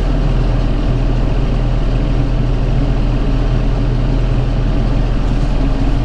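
Tractor engine running steadily, heard from inside the cab, driving a round baler through the PTO while the baler takes in net wrap around a finished bale.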